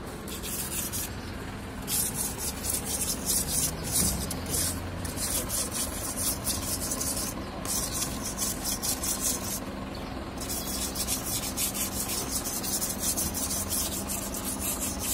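Small hand scraper rasping against an old lime-washed masonry wall in quick, repeated strokes, scraping off mould as preparation so the lime-wash will adhere. The scraping stops briefly a few times, near the start and twice about halfway through.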